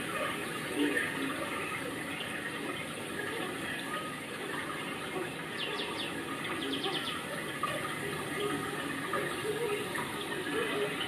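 Steady rush of running water. About six seconds in, a brief run of quick, high chirps sounds over it.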